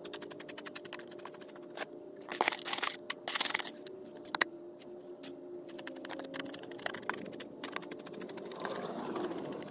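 A flat wooden stick scraping and poking gravelly concrete mix, packing it under the edge of a plastic pad. It makes a run of gritty scrapes and small crunches, loudest from about two to four and a half seconds in.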